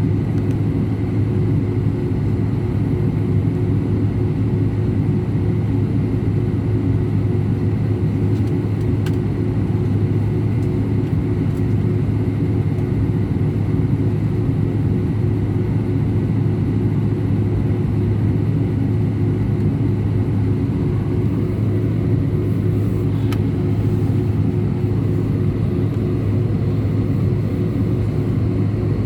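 Steady engine and airflow rumble inside an Airbus A319 passenger cabin, even in level with no change in pitch.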